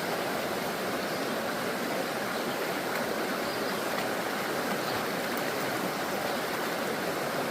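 Stream water flowing steadily, a constant rushing.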